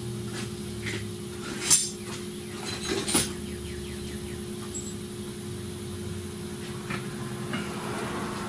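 Metal hand tools and parts clinking against each other a few times, sharpest about two and three seconds in, over a steady electrical hum.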